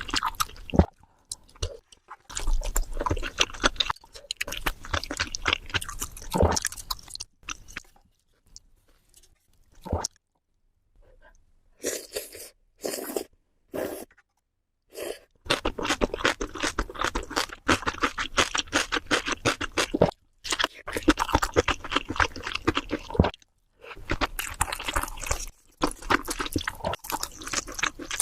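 Close-miked eating: crisp food crunched and chewed in long stretches of dense, rapid crackling, with a quiet pause about a third of the way in followed by a few short bites before the crunching resumes.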